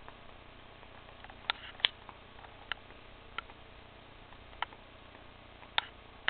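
Clown loaches clicking while feeding: six sharp, irregularly spaced clicks, the loudest a little under two seconds in, over a faint steady hum.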